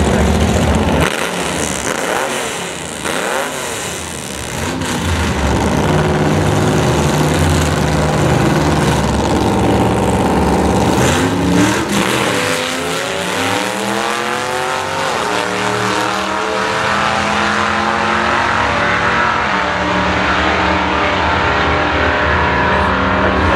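Two gasser drag cars' engines running loud on the starting line, then launching about twelve seconds in and revving hard down the strip, their pitch climbing and dropping with each gear change.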